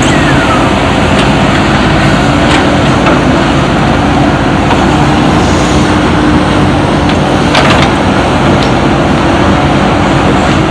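Heavy diesel engine of a backhoe loader running steadily under work, with a couple of sharp knocks, about two and a half seconds in and again near the end.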